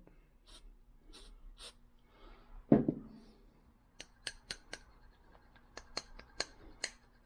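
Small side cutters being worked open and shut, giving a run of sharp metallic clicks in the second half as the oiled pivot loosens. Before that come a few short hisses of Rem Oil being sprayed into the joint and a single dull knock just before three seconds.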